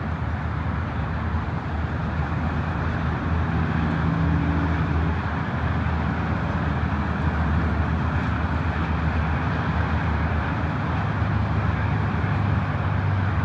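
Steady engine drone: a low rumble whose pitch shifts slightly a few seconds in and again near the end, under a constant noisy hiss.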